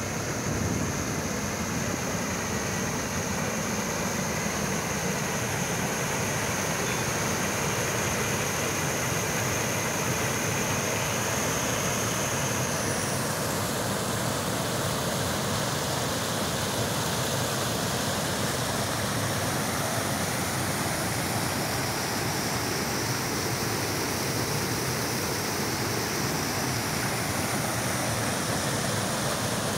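Small river waterfall: muddy water pouring over a low rock ledge into a pool, a steady rushing noise. A thin high steady tone sits over it for the first dozen seconds.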